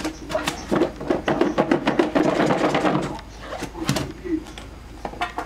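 Potato cubes in water sloshing and knocking against the sides of a glass food container as it is shaken by hand, a fast rattling clatter that is loudest from about one to three seconds in, to mix in turmeric and salt.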